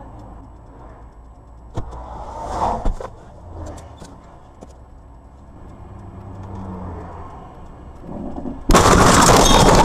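A car's engine runs low and steady with a few sharp knocks. About nine seconds in a sudden, very loud harsh crash noise starts and holds as the car ploughs into a snowbank.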